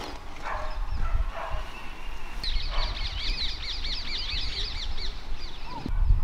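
Birds calling: a few short calls, then a rapid run of high chirps starting about two and a half seconds in and lasting about three seconds, over a low rumble that grows louder near the end.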